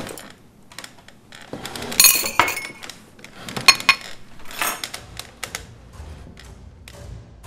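Glassware, china and cutlery clinking and knocking at a dinner table. A few sharp, ringing clinks stand out about two and three and a half seconds in.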